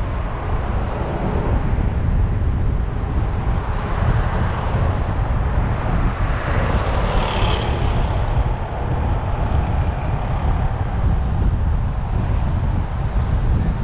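A car driving: a steady low rumble of road and engine noise. It grows brighter for a couple of seconds about halfway through.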